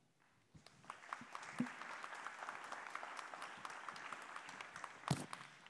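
Audience applauding: many hands clapping, starting about half a second in and thinning toward the end. A single sharp knock about five seconds in.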